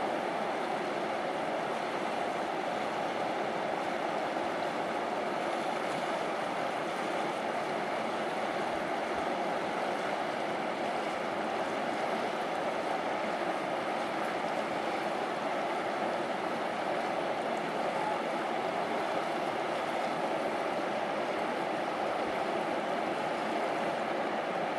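Steady rush of a fast river running over riffles.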